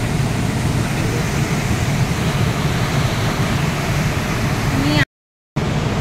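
Steady rushing noise of a large waterfall pouring over a cliff into its gorge, heard from the top. The sound cuts out completely for about half a second near the end.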